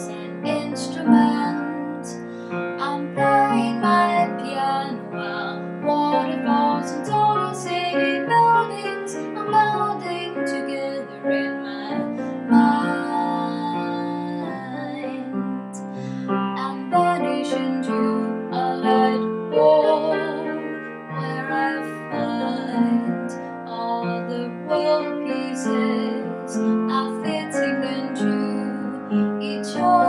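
A woman singing while accompanying herself on the piano, her voice holding long notes with vibrato in places over the piano chords.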